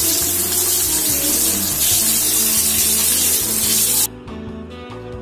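Masala-coated whole river fish shallow-frying in hot oil on a flat pan, with a loud, steady sizzle that cuts off suddenly about four seconds in. Background music plays underneath.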